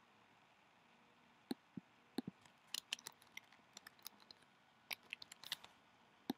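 Faint clicks of a computer mouse, then a quick run of keystrokes on a computer keyboard as a word is typed, with another pair of clicks near the end.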